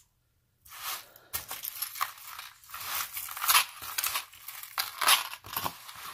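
Irregular rustling and crinkling of necklaces and their packaging being handled, starting after a brief moment of dead silence.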